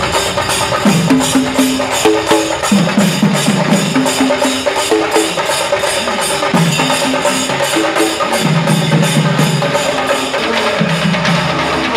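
A procession drum troupe beating laced barrel drums with sticks in a fast, dense rhythm. Under it runs a melody of held notes that step from pitch to pitch.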